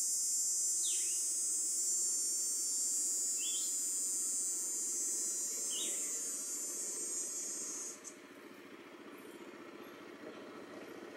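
Yamaha Grizzly 700 ATV engine running faintly in the distance, under a steady high hiss that cuts off about eight seconds in. Three short falling chirps sound in the first six seconds.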